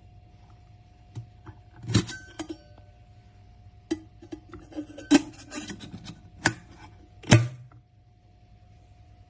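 A stainless steel electric kettle being handled: a run of sharp knocks and metallic clinks, the loudest about two, five, six and a half and seven and a half seconds in, over a faint steady hum.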